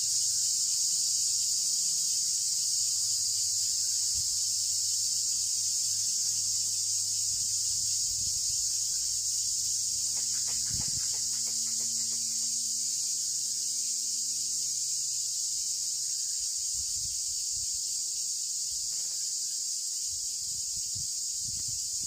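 Steady, high-pitched chorus of forest insects, unbroken throughout, with a few faint soft knocks about halfway through and again near the end.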